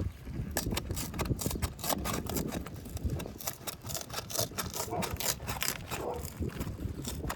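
Metal hand tools prying and scraping under asphalt shingles: a rapid, uneven series of clicks, knocks and scrapes as roofing nails are worked loose.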